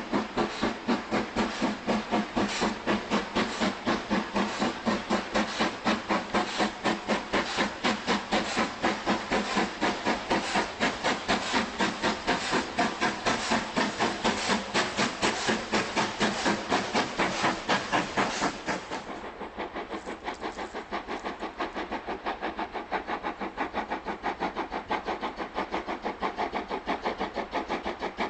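Steam locomotive under way, its exhaust beats coming fast and even at about four a second. About two-thirds of the way through, the sound drops to a quieter locomotive with a similar steady beat.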